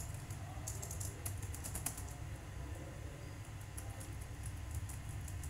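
Typing on a computer keyboard: quick runs of keystrokes, dense for the first two seconds and sparser after, over a steady low hum.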